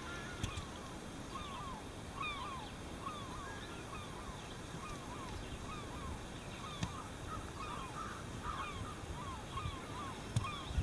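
Birds calling over and over, short chirping calls about twice a second, over a steady background rush.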